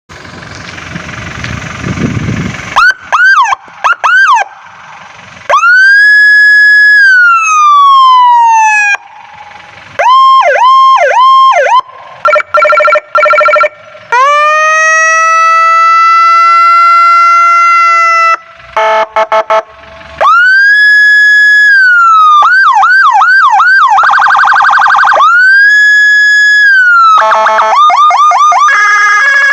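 M200 handheld electronic siren sounding loudly through a 100-watt QZ speaker, cycling through its tones: short rising chirps, long rise-and-fall wails, rapid yelps, a two-tone warble, a long steady tone and a buzzing horn tone.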